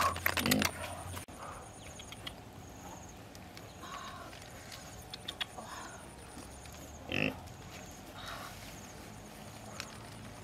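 Duck eggs clicking against each other as hands move them in a woven basket, in the first second. Then a pig grunts a few short times, loudest about seven seconds in.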